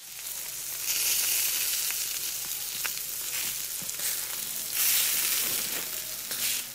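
Food sizzling on a hot grill: a steady high hiss with a few sharp pops, swelling about a second in and again near five seconds.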